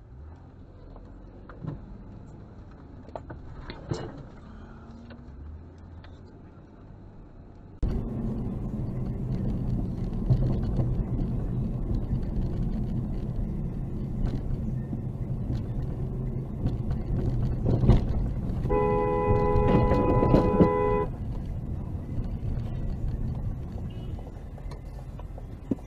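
Dashcam recording from inside a moving car: steady engine and tyre rumble, which gets much louder about eight seconds in. Near the end a car horn sounds steadily for about two seconds, a warning at a driver who changes lanes without checking the blind spot.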